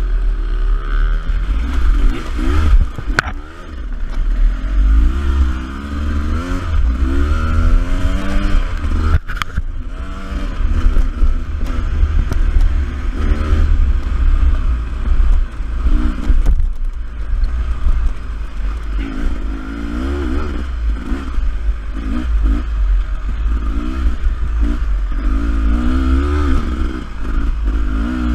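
Beta 300RR two-stroke enduro motorcycle engine revving up and down over and over as it is ridden along a trail, over a heavy low rumble. Sharp knocks sound about 3 and 9 seconds in.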